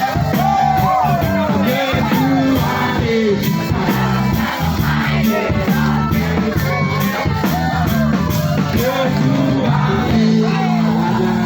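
Background pop song with a singing voice over a steady bass.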